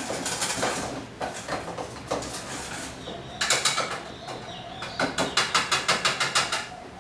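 Wire whisk clinking against a metal pot as cooked egg yolk and sugar cream is whisked by hand. The strokes come irregularly at first, then in two fast rhythmic runs in the second half, about seven a second.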